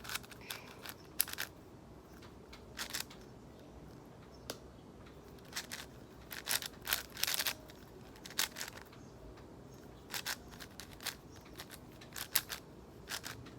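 Plastic layers of an MGC 6x6 speed cube clicking as they are turned during a solve, in irregular clusters of quick clicks with short pauses.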